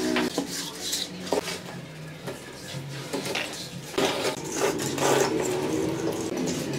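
Steel plastering trowel scraping and smoothing wet cement mortar on a countertop, in repeated strokes, louder again from about four seconds in.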